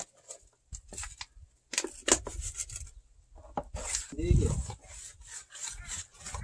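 Non-shrink mortar being stirred and scraped with a flat hand tool in a plastic basin: irregular rough, gritty scrapes of wet cement against the tub.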